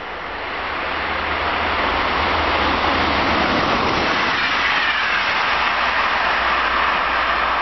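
Passenger train of Corail coaches rushing past close by at speed: a loud rush of wheels on rails that swells over the first two seconds and then holds steady.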